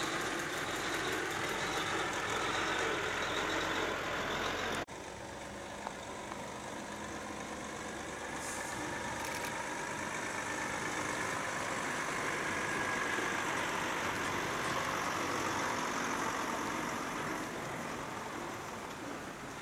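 Heavy diesel trucks running as they drive slowly past: a Mack R-series tractor unit for the first five seconds, then, after an abrupt cut, a Volvo truck approaching and passing, growing louder toward the middle and fading near the end.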